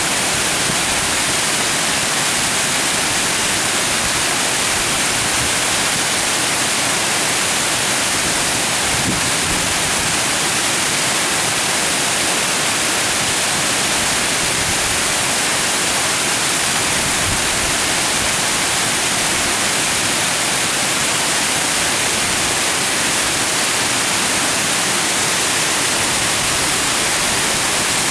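Water rushing over a stepped weir: a steady, even hiss that carries most of its energy in the high end.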